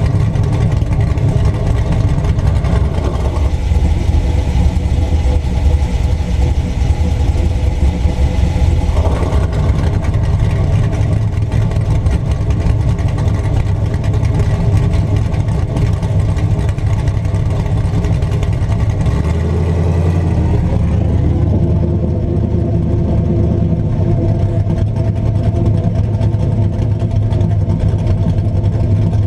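LS1 V8 idling steadily through an exhaust fitted with a DMH electric cutout. The exhaust note changes about three and a half seconds in and again about nine seconds in as the cutout is switched, and the tone shifts once more around twenty seconds in.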